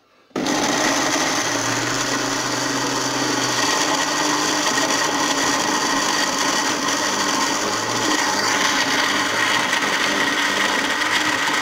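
Ramtoms electric blender switched on, its motor starting abruptly just under half a second in and then running steadily, blade spinning as it blends chopped tomatoes into pulp in the glass jug.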